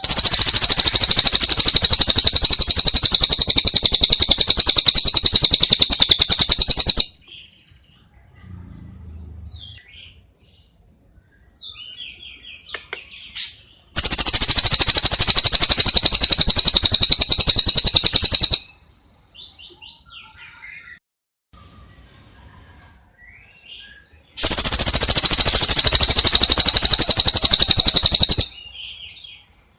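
Recorded songbird calls used to train caged birds. Three very loud, fast, buzzing trills last several seconds each, the first about seven seconds long, with softer scattered chirps and whistles between them.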